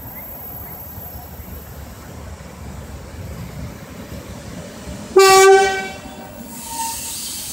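ED4M electric multiple unit rolling into the platform with a low, steady rumble, then sounding its horn in one short, loud blast about five seconds in. A hiss follows near the end.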